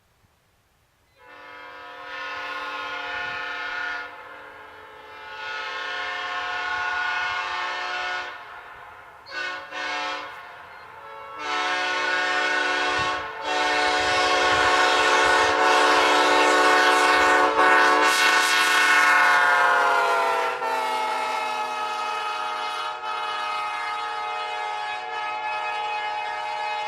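Locomotive air horn sounding a chord in several blasts: two long ones, two short toots, then one long sustained blast. Near the end of that last blast the pitch sags slightly and then holds lower.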